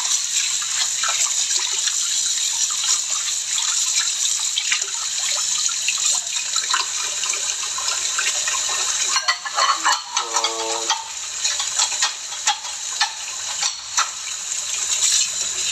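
Steady hiss like running water, with scattered clicks and a short pitched sound about ten seconds in.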